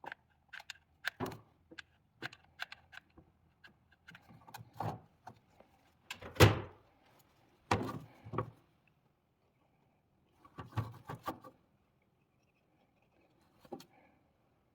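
Irregular clicks and knocks of small hard parts being handled, with a louder thunk about six seconds in and a few short clusters of rattling taps later.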